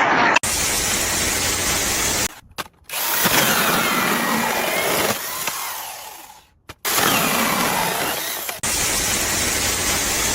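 Power tool running in several short stretches, each cut off abruptly, with a faint whine that rises and falls in pitch.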